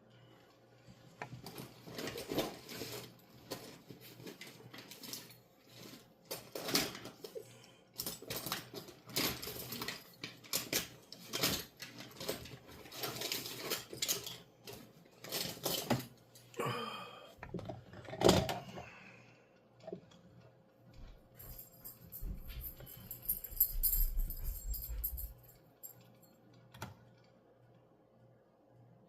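Small metal hand tools and parts clinking and clattering as they are picked up and handled on a workbench, in quick irregular taps. Near the end a few seconds of low rumbling with a high scraping sound over it.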